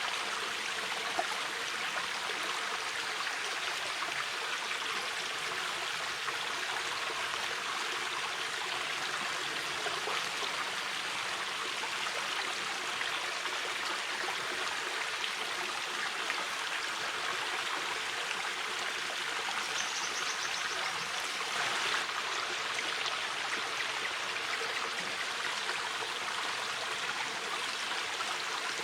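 Shallow river flowing steadily over stones, an even rushing and babbling with small splashes.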